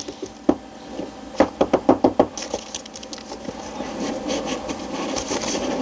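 Packaging being handled while a small boxed product is unpacked: a quick run of light clicks and taps, then steady crinkly rustling of the wrapping from about two and a half seconds in.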